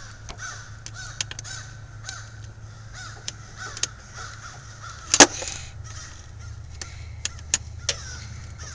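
Scattered metallic clicks and knocks of hand tools working around the engine's belt pulley, with one louder clank about five seconds in. A bird calls repeatedly in the background.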